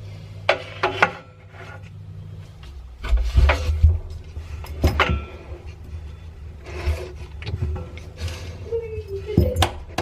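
German Shepherd pawing and scratching at a washing machine to get his toy out: irregular knocks, thumps and scrapes. A short pitched sound near the end may be the dog whining.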